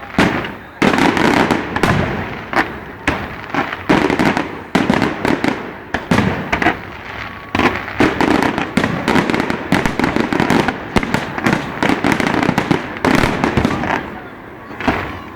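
Fireworks display: aerial shells bursting in quick, dense succession, several bangs a second, each trailing off before the next.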